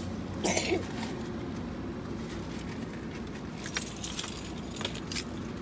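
Keys jangling, with small clicks and rattles over a steady low hum; the jangling is thickest about four seconds in.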